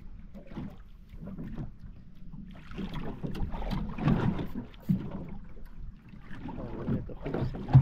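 Ambient noise aboard a small boat at sea: wind and water over a low, steady hum, swelling louder between about three and five seconds in.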